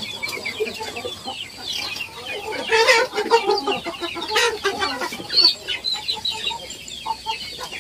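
A flock of young Indonesian native village chickens (ayam kampung) clucking and cheeping, with many short calls overlapping and a louder flurry about three and four and a half seconds in.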